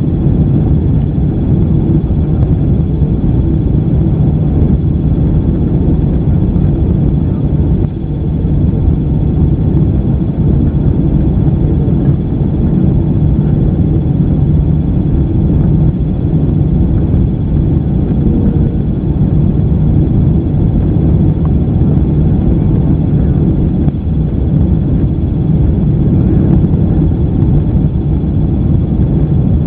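Steady, loud rumble of engine and airflow noise in the cabin of a Boeing 767-300 airliner on its approach.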